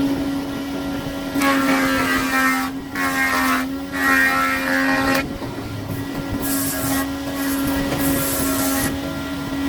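An electric woodworking machine runs at a steady, constant pitch, with several bursts of rough cutting noise lasting one to two seconds each as wood is worked.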